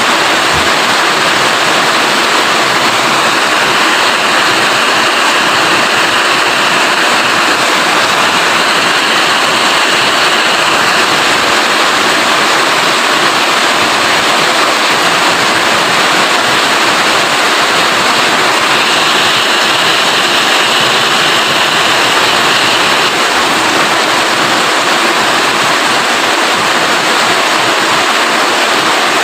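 Steady rain falling, a loud, even hiss with no breaks.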